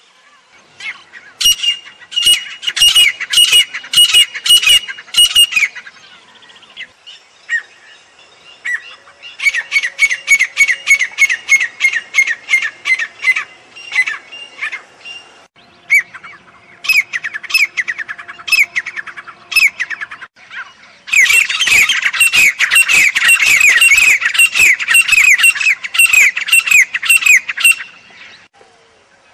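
Grey francolin calling: fast runs of sharp, high, repeated notes in four bouts with short pauses between them, the last bout the loudest and densest.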